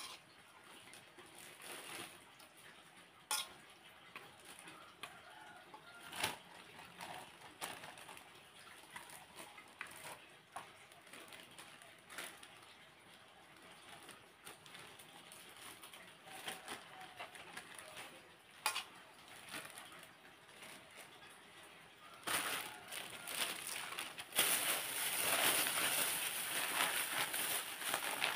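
Scattered light clicks and knocks of hand work packing food into plastic bags: a spoon against the bowl and the handling of bags. About 22 seconds in, a rustling of plastic starts and grows louder near the end.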